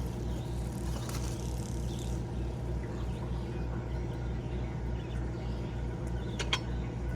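A motor running steadily with a low hum that throbs about three times a second, with a couple of short clicks near the end.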